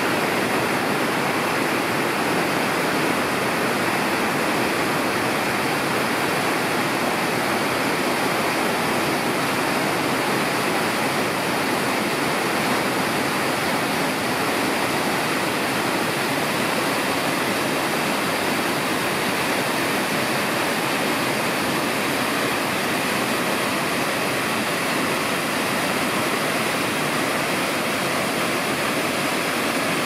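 Hara Fudo Falls, a tall waterfall, plunging into its pool in a steady, unbroken rush of falling water.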